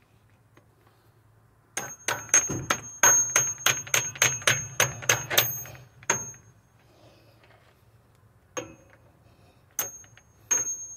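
Tools working metal on a truck's tie rod end. A quick, even run of sharp metallic clicks, about four a second and each with a short ringing tone, lasts some four seconds. Then come three single clicks.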